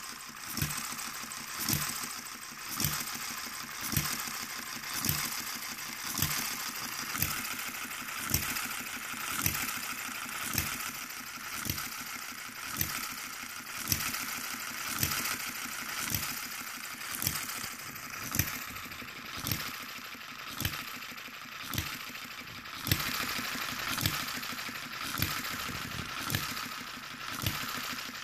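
One-third scale model of a New Holland hopper-cooled gas engine running steadily. It fires about once a second, an even beat over a continuous light mechanical clatter.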